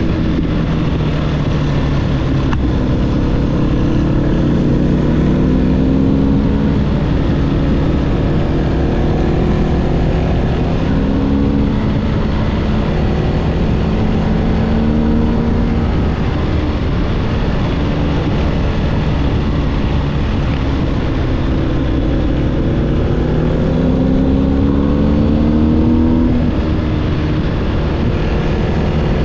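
BMW R1250GS boxer-twin engine through an SC-Project SC1-R GT aftermarket exhaust, pulling along at road speed. Its note rises and falls with the throttle and climbs in revs near the end, under a steady rush of wind noise.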